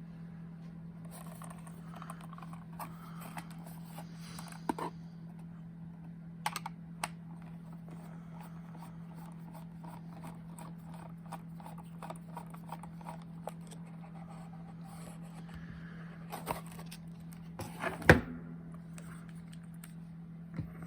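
A deadbolt lock and its small parts being handled: scattered light clicks, taps and scrapes of metal and plastic, with a louder knock about eighteen seconds in.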